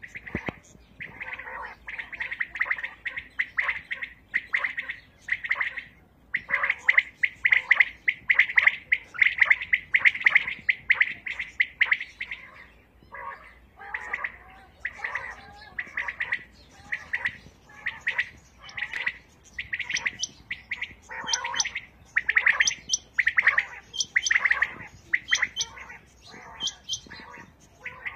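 Caged quails calling, many birds over one another in a dense, steady run of short chirping calls, with higher-pitched notes joining in during the second half. These are the calls used to draw wild quail in for hunting.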